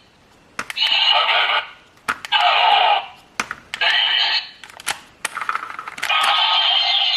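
A counterfeit Ultraman Z light crossbow-spear toy plays short electronic sound effects through its small speaker, each set off by a button click: three brief ones, then a longer one from about six seconds in. The effects are plain and simple, with no finishing-move sound.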